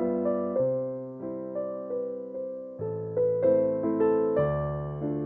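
Background music: a gentle piano tune with sustained chords and notes that change about every half second.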